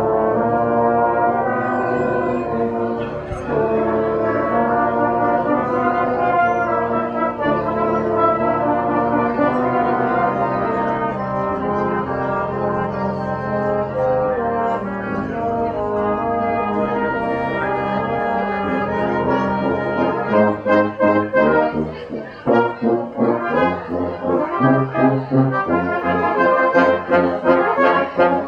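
Brass music: trombones and trumpets playing held chords, turning to short, detached notes about twenty seconds in.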